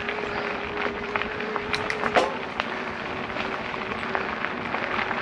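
Specialized Turbo Levo e-bike's mid-drive motor whining at a steady pitch under load on a steep climb, over the rush of tyres on a dirt 4WD track with scattered sharp clicks from stones and the drivetrain.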